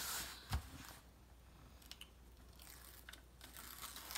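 Plastic release film on a diamond painting canvas rustling and crackling as hands smooth it and peel it back off the sticky glue. There is a single low knock about half a second in.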